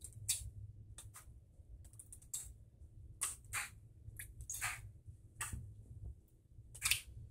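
Soft, irregular clicks and taps of a thin plastic candy-kit mould tray being handled while water is added to it.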